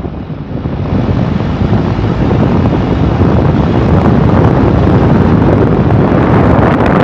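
Wind buffeting the microphone from a moving vehicle, a loud, dense rumble mixed with road noise; it eases for a moment near the start, then holds steady.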